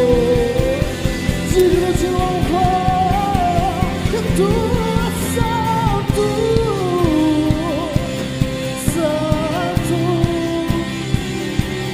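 Live band rehearsal of a gospel worship song: a male voice singing over keyboard, acoustic guitar and electric guitar, with a steady beat.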